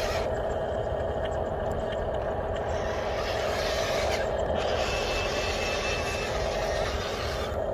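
Radio-controlled model dump truck driving loaded over sand: a steady whine from its electric drive motor and gears over a low rumbling noise.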